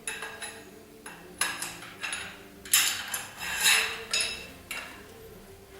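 Metal parts of a dent-repair stand knocking and clinking together as they are slotted into place, a run of sharp metallic knocks with a short ring, some seven in all, unevenly spaced.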